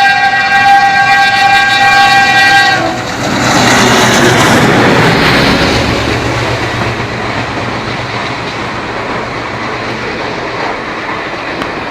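WDM2 diesel locomotive's multi-tone air horn sounding a long blast that cuts off about three seconds in. The locomotive's ALCO 16-cylinder diesel then passes loudly, and the coaches follow, wheels clicking over the rail joints as the sound slowly fades.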